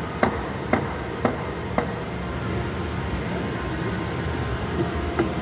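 Hammer taps: four sharp knocks about half a second apart in the first two seconds, then they stop. A steady background rumble continues under them.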